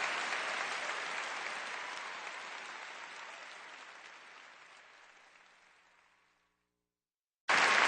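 Audience applause at the end of a live song recording, fading out over about six seconds into silence. A loud, noisy sound cuts in abruptly near the end.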